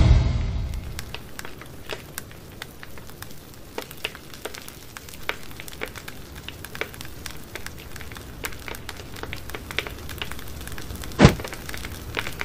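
Campfire crackling: irregular small pops and snaps over a low hiss, with one louder snap near the end.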